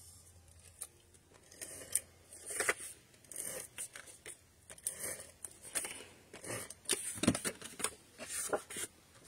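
Cardstock being handled on a craft mat: paper rustling, sliding and scraping, with scattered light clicks and taps as it is pressed down and turned over.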